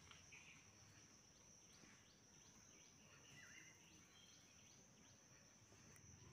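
Near silence: faint outdoor ambience with a steady high-pitched insect drone and a few faint bird chirps.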